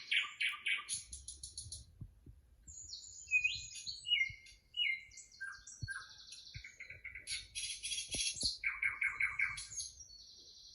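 Several small songbirds chirping and trilling in quick, repeated phrases, played from a bird video on a television.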